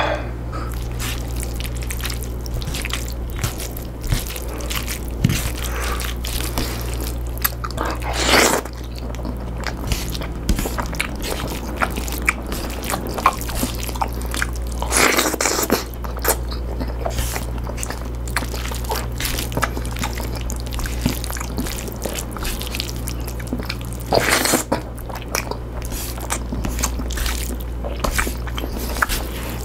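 A person chewing and biting pinakbet close to the microphone: a run of wet mouth clicks and smacks, with louder bites about a third, half and four-fifths of the way through. A steady low hum runs underneath.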